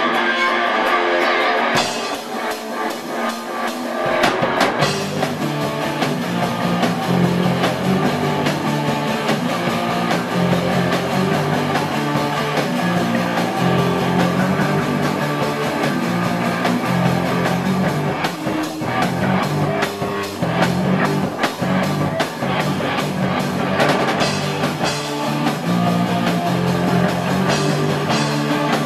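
Live rock band of two electric guitars, bass guitar and drum kit playing an original rock song. It opens on guitar alone, and the bass and drums come in about four seconds in, after which the full band plays on.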